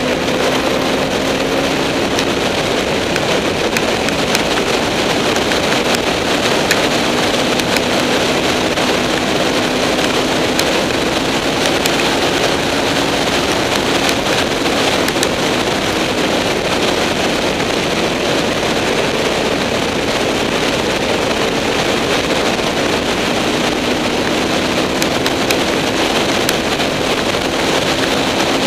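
Heavy wind rush over the microphone of a moving motorcycle, with the Honda VFR800's V4 engine note underneath, rising gently in pitch near the start and again near the end.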